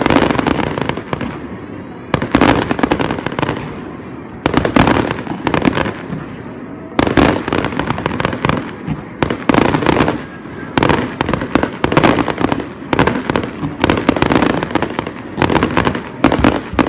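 Fireworks display: a rapid series of aerial shells bursting, about a dozen sudden bangs in quick succession, each trailing off over a second or so, coming closer together toward the end.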